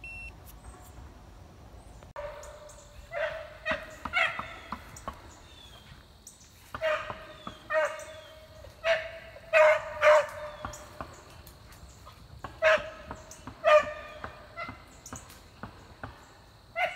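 Beagle hound baying while running a rabbit: short, high, ringing barks that start about two seconds in and come two or three at a time with pauses between.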